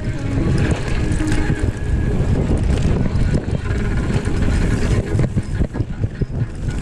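Wind buffeting the microphone, with rattles and knocks from a mountain bike riding over rough ground.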